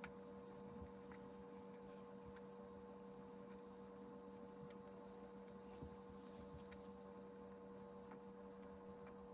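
Near silence: a steady low electrical hum, with a couple of faint soft ticks.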